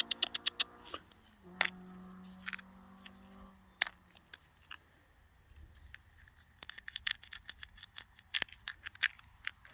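Steady high chirring of insects, with many short dry clicks and scratches in clusters at the start and again through the second half. A low hum runs for about two seconds early on.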